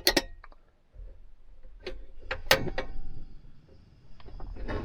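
A few sharp clicks and knocks, as of objects being handled and set down, with a faint steady high tone coming in a little past halfway.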